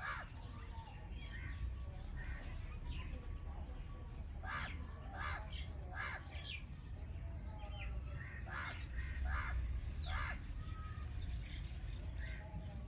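Wild birds calling at a feeding spot: about seven short, harsh calls, some in quick pairs, with thinner chirps and short whistles between them. A steady low rumble runs underneath.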